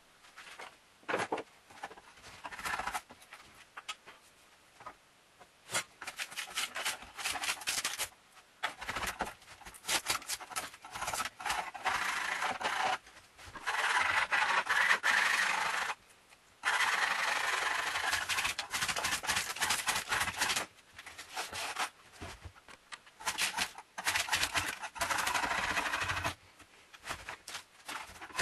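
A hand scraper dragged over a wooden coffee tabletop, scraping off the splintered remains of its old surface. The strokes come irregularly, some short and some running on for several seconds, with brief pauses between them.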